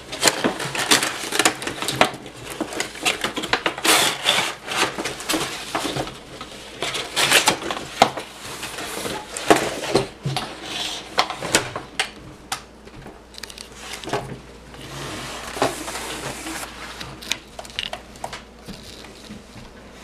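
Cardboard packaging being slid out of a box and handled: irregular rustling and scraping, with many sharp clicks and knocks against the table.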